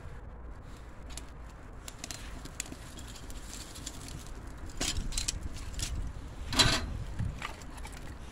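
Kindling fire catching in a rusty steel barrel stove, crackling and snapping with scattered sharp clicks as dry sticks are fed in. The clicks bunch up about five seconds in, and the loudest snap comes a little after six and a half seconds.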